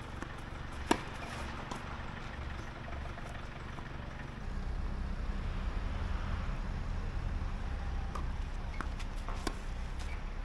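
A single sharp knock of a tennis ball about a second in, with a fainter tick near the end, over a steady low rumble that gets louder about halfway through.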